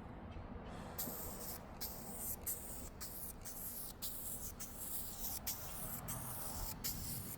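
Spray paint hissing out in a quick series of short bursts over fresh welds, starting about a second in.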